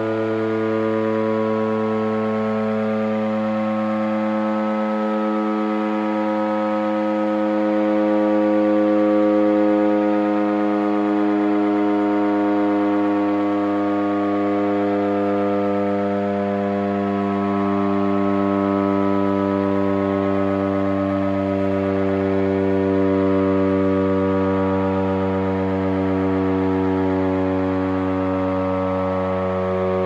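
Air raid siren sounding a long, steady wail made of several tones together, slowly sinking in pitch. It is sounding the city's curfew signal.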